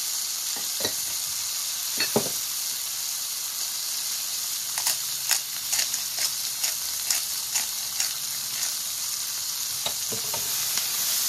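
Delicata squash slices, tomato wedges and garlic sizzling in oil in an electric skillet, a steady high hiss. Two soft knocks come about one and two seconds in, and from about five to nine seconds in the frying spits out a run of sharp crackles.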